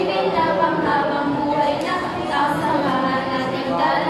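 Several girls singing a rap-style song together without accompaniment, their voices continuous throughout.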